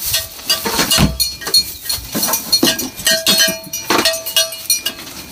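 Metal feed buckets and scoop clinking and clanking while feed is being handed out: a run of sharp knocks, some ringing briefly.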